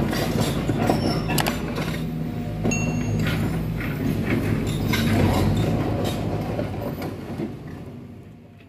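Hands rummaging through a mesh keep net full of small fish, with rustling and clicking of the net and fish, over a steady low hum. The sound fades out near the end.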